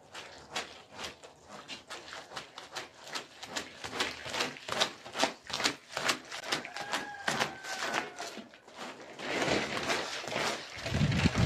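Red rubber floor squeegee scraping thick wet mud across a carpet in quick repeated strokes, about two or three a second, growing louder partway through, with a heavier stretch near the end as the mud is pushed off the edge.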